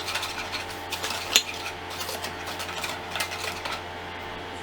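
Eggs and sugar being whisked in a bowl: irregular clicking and scraping of the whisk against the bowl, with one sharper knock about a second and a half in.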